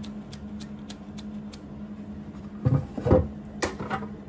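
Light, sharp ticks about three a second as gold colour is flicked onto a clear plastic chocolate bar mould, then a few louder knocks and handling noise about three seconds in. A steady low hum runs underneath.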